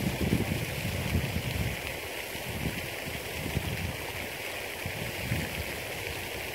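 Wind buffeting the microphone, an irregular low rumble in gusts over a steady hiss, strongest in the first couple of seconds.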